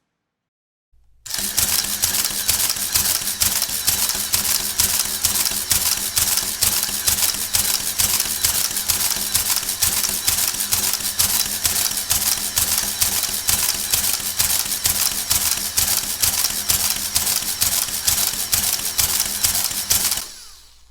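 Clary electric adding machine cycling over and over, a fast, steady run of mechanical clicks over the hum of its motor. It starts about a second in and cuts off near the end.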